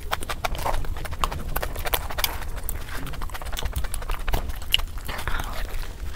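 Close-miked mouth sounds of eating egg curry and puri: wet smacking and chewing, full of quick irregular clicks of lips and tongue.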